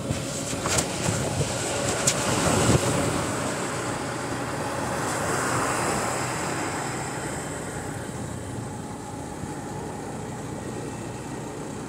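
Motorcycle riding noise: the engine running at cruising speed under wind rushing over the handlebar-mounted phone's microphone. A few sharp clicks and knocks come in the first three seconds as the phone is jolted, then the noise stays steady.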